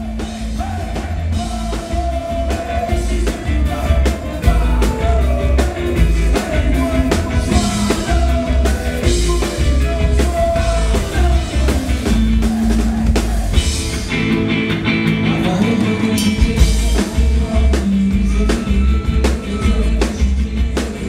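Loud rock music: a band playing, with singing over drums and heavy bass.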